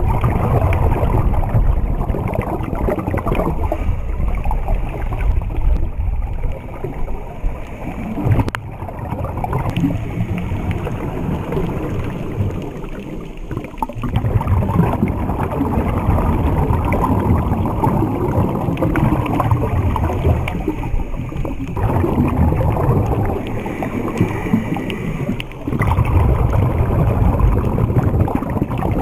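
Underwater noise with the microphone submerged: a muffled low rumble and gurgling of water and divers' exhaled air bubbles, swelling and easing every few seconds.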